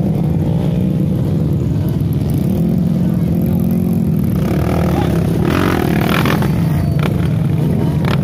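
Trail motorcycle engine running steadily, with a short rev about three seconds in.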